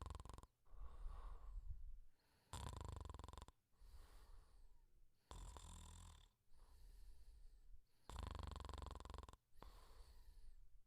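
Quiet snoring in a slow, regular rhythm, a breath about every two and a half to three seconds, each a louder rattling snore followed by a softer breath.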